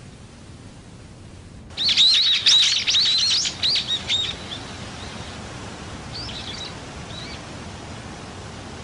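Birds chirping: a quiet low hum at first, then a sudden burst of many quick twittering calls about two seconds in, thinning to occasional chirps, over a steady outdoor hiss.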